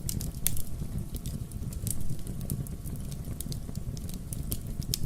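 Fire in a fireplace crackling: irregular sharp pops and snaps over a steady low rumble of the burning.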